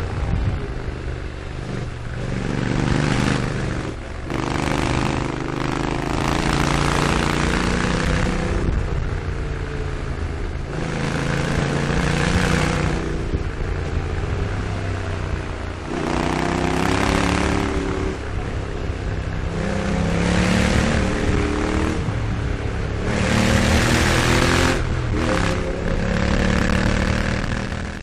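Honda NC750X motorcycle's parallel-twin engine and exhaust under way, its pitch climbing and dropping back several times as the bike accelerates and shifts gear.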